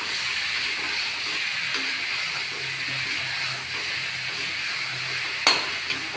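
Onion, tomato and taro masala sizzling steadily in an iron kadai as a metal spatula stirs it, with a sharp clink of the spatula against the pan about five and a half seconds in.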